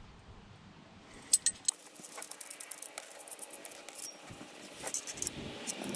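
Steel U-bolt exhaust clamp clinking and scraping against the exhaust center pipe as it is fitted by hand over the pipe joint: a few sharp metal clicks about a second and a half in, then lighter rattling and scraping.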